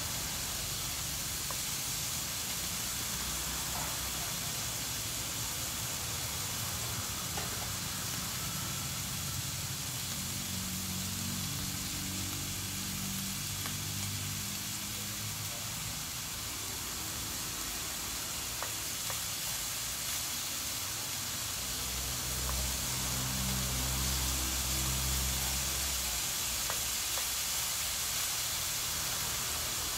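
A mookata grill-and-broth pan hissing and sizzling steadily as pork slices cook on its hot dome. A low rumble comes in about two-thirds of the way through and the sound gets a little louder.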